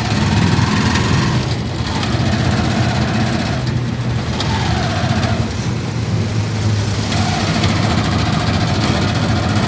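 Motor vehicle's engine running steadily with road noise, heard from inside the cabin as it drives slowly along.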